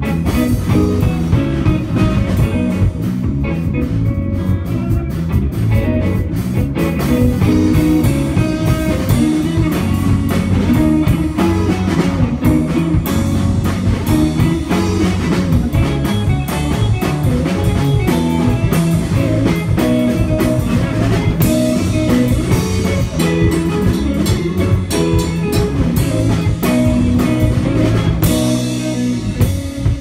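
Instrumental rock trio playing live: electric guitar, bass guitar and drum kit.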